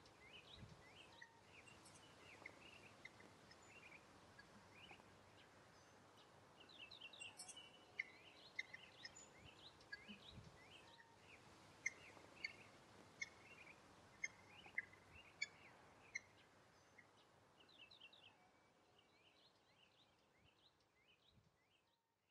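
Small birds chirping and calling over faint outdoor background noise, with a run of about seven sharp chips roughly half a second apart in the middle. The sound fades out near the end.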